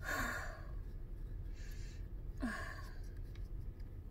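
A woman sighs twice, about two and a half seconds apart: breathy exhales, each ending in a brief voiced sound. They are pained sighs during an esophageal spasm, with a just-taken sublingual spray burning her tongue.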